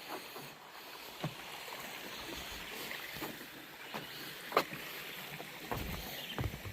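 Footsteps of hikers walking on a forest trail, with irregular sharp steps and knocks over a steady rustle.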